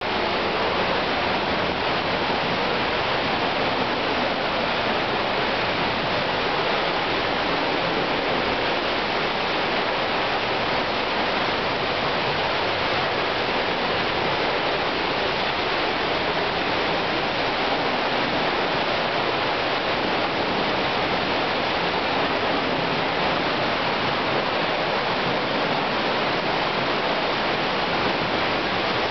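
North Falls, a tall waterfall, rushing in a steady, unbroken stream of falling-water noise.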